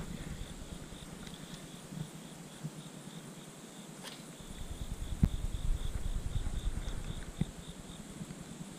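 An insect chirping steadily in a rapid run of evenly spaced high pulses, with wind rumbling on the microphone, stronger in the second half. There are a few brief clicks.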